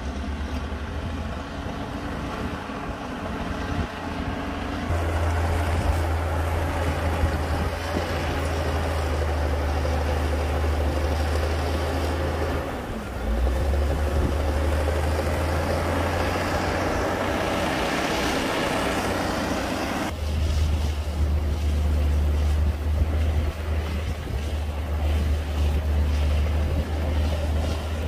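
Heavy diesel engine of earthmoving machinery running steadily with a deep drone, its note and load shifting abruptly a few times.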